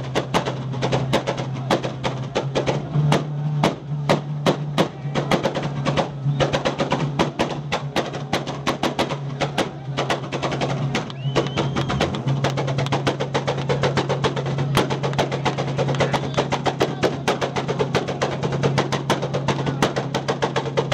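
A car engine held at high revs through a loud exhaust, a steady drone broken by a dense, irregular run of sharp pops and crackles.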